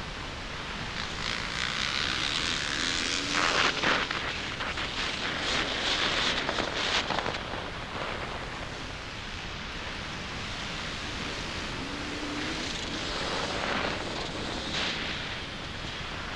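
Beta 300 RR single-cylinder two-stroke dirt bike engine running under load and revving up, rising in pitch about three seconds in and again around twelve seconds, while ridden around a motocross track. Heavy wind rush on the helmet-mounted microphone covers much of the engine, loudest over the first half.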